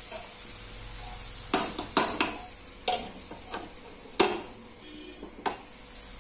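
Steel spatula stirring and scraping bottle gourd and chana dal frying in a steel kadai, with sharp metal-on-metal clacks over a light steady sizzle. The loudest clack, about four seconds in, is a steel lid being set down on the kadai.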